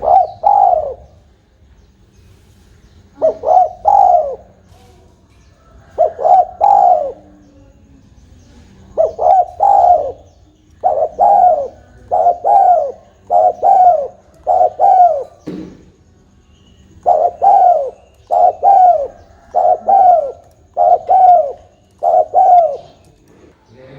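Spotted dove cooing: loud, repeated short coos that bend down in pitch, first in groups of two or three with pauses between, then in longer runs of five or six coos in a row.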